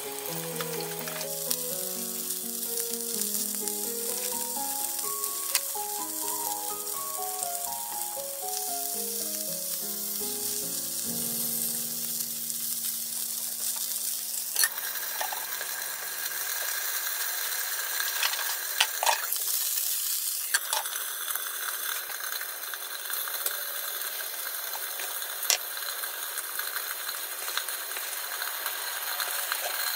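Pork-wrapped okra rolls sizzling in oil in a frying pan. The sizzle grows louder about halfway through as the rolls are turned with tongs, and a few sharp clicks sound later on. Gentle background music plays over the first half and fades out.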